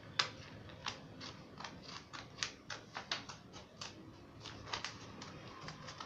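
Scissors snipping through a sheet of A4 paper in short, quick cuts, about three snips a second.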